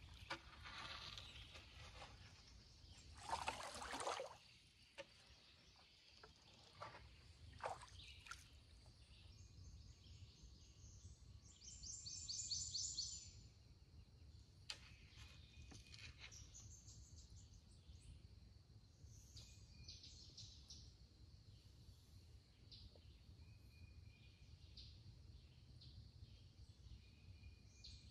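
Faint woodland ambience: several songbirds chirping and trilling, including a quick trill about twelve seconds in, over a low steady rumble. A short rush of noise about three to four seconds in and a few soft clicks around seven to eight seconds are the loudest moments.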